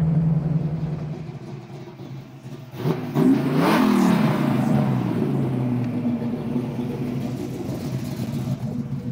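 Ford Maverick's carbureted engine running steadily, then fading. About three seconds in it is revved hard, its pitch climbing and falling back with a rushing noise, and it settles into a steady run.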